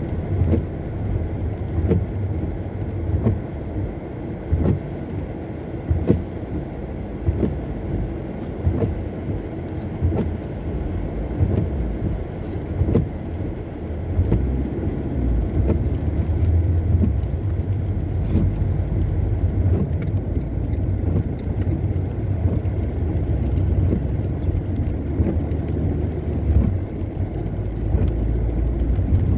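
Car driving on a wet road in the rain: a steady low road and engine rumble with frequent short knocks, growing a little heavier about halfway through.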